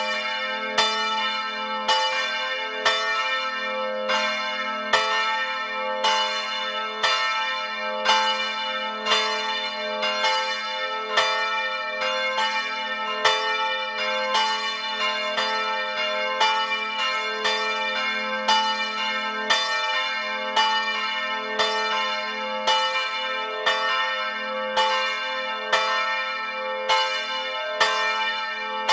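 Several church bells swinging and ringing together, heard close up inside the belfry: overlapping strikes about two a second in an irregular pattern, each leaving a long ringing hum.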